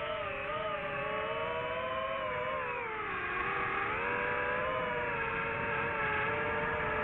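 DJI FPV drone's motors and propellers whining steadily, several close pitches moving together; the pitch drops about three seconds in and climbs back a second later as the throttle changes.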